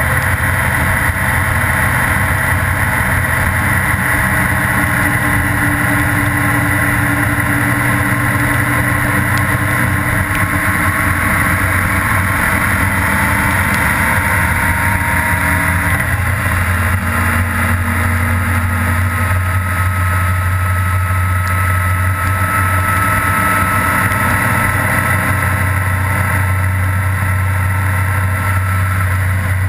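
Honda Gold Wing GL1800's flat-six engine running at a steady cruise with constant wind and road noise; the engine note dips slightly about halfway through.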